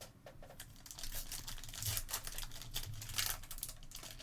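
Foil trading-card pack wrappers and cards crinkling and rustling as they are handled, in irregular short swishes.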